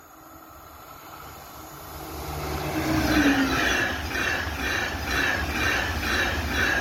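Two coupled TGV Atlantique high-speed trainsets approaching and passing at speed: the rush of wheels on rails grows loud over the first three seconds, with a brief falling tone about three seconds in. After that comes a steady rushing beat about twice a second as the carriages go by.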